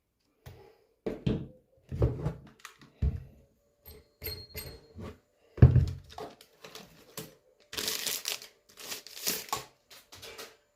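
Handling noises from a small chainsaw being inspected: a run of separate knocks and thunks, then crinkling, like plastic wrapping being handled, about eight seconds in.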